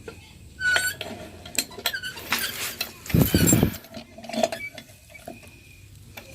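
Metal clinks, clicks and scrapes of pump parts and tools being handled during repair of a hand water pump, with a louder half-second rush of noise about three seconds in.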